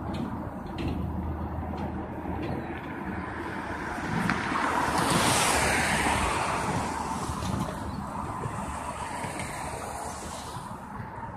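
Road traffic on a multi-lane street: a vehicle passes, its tyre and road noise swelling to a peak about halfway through and then fading slowly.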